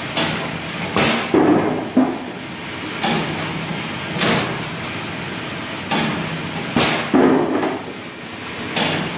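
Coconut breaking machine running with a steady hum, broken by sharp cracks and metal clanks every second or so at irregular gaps, some in quick pairs, as coconuts are split.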